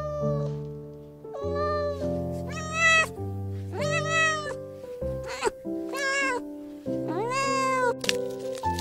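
Kitten meowing repeatedly, about five drawn-out meows that rise and then fall in pitch, over soft background music.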